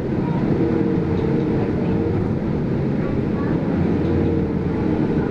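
Steady engine and road noise of a city bus heard from inside the cabin while it drives along.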